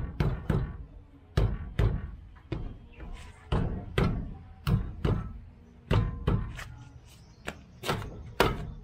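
A jacked-up car wheel worked by hand on its hub: a run of sharp thumps and knocks, unevenly spaced at about two a second.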